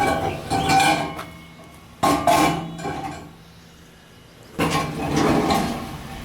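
Metal parts clanking and scraping against each other in three bursts about two seconds apart, with a brief metallic ringing in each.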